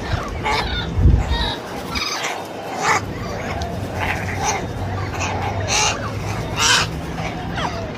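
A flock of Amazon parrots giving repeated short, harsh squawks and calls, one after another.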